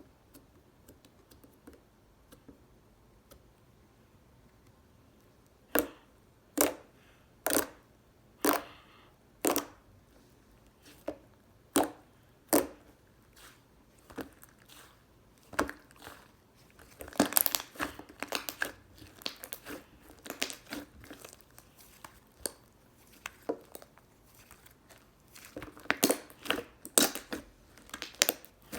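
Tomato slime being handled by hand, giving sharp, separate pops about once a second at first, then quicker runs of crackling and tearing sounds.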